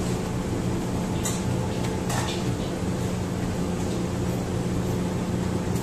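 Steady low hum of kitchen machinery, with two soft slaps a little after one second and about two seconds in as naan dough is slapped and stretched between the hands.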